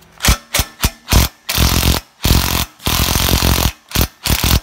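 Impact wrench on a long socket extension, loosening the exhaust downpipe bolts. It hammers in four short blips, then in several longer rattling bursts.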